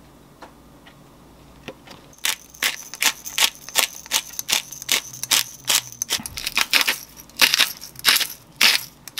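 A pepper shaker shaken over beef steaks, giving sharp rattles about three times a second, then a salt grinder twisted, its grinding coming in longer, denser bursts near the end.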